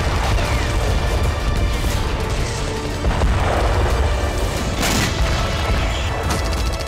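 Background music with deep booming and rumble of explosions, and a sharp bang about five seconds in.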